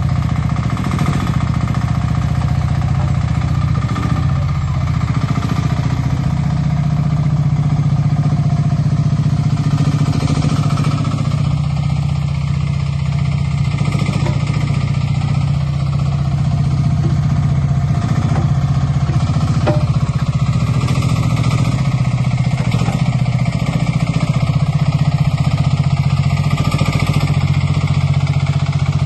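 Sherpa 10 mini loader's engine running steadily, a loud, even low engine drone.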